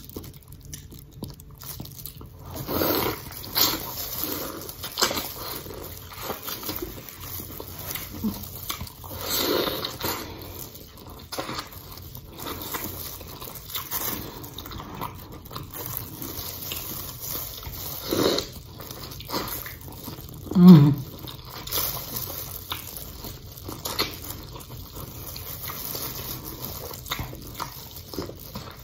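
Close-up eating sounds: wet chewing, lip-smacking and bites into corn on the cob, with short irregular clicks and crunches. About 21 s in, the loudest moment is a brief low hum of the voice that drops in pitch.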